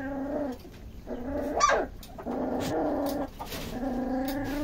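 A puppy whining and grumbling in protest: four drawn-out, pitched cries in a row, with a sharp high yelp about one and a half seconds in, as it complains while its littermates eat.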